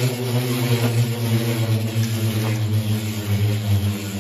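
Two Beyblade X tops, a yellow Shark Edge and a Knight Lance, spinning on a clear plastic stadium floor, giving a steady whirring hum with a few faint clicks.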